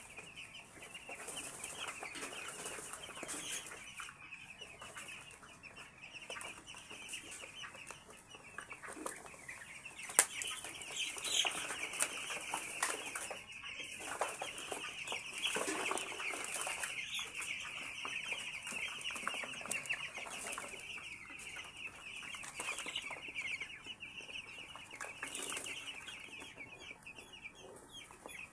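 A flock of 11-day-old chicks peeping continuously, a dense chorus of high cheeps, with a sharp knock about ten seconds in.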